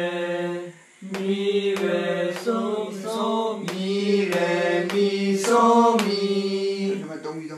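A man's voice singing a sight-singing exercise in solfège syllables (do, re, mi, fa, so), one held note at a time moving stepwise up and down the scale, with a short pause about a second in.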